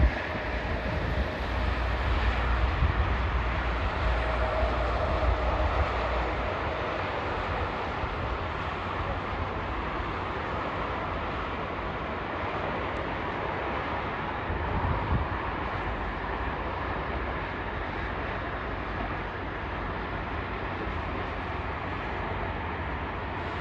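Jet engines of an Emirates Airbus A380 taxiing at low power: a steady, even jet hum and rush with no rise or fall in pitch.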